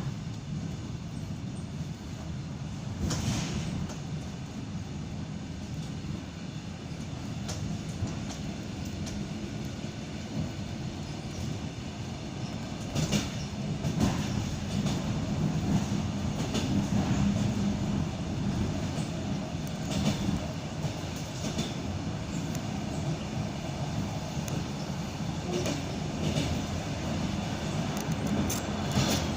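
Interior of an ED9M suburban electric train under way: steady running rumble with the clickety-clack of the wheels over rail joints, sharp knocks every few seconds.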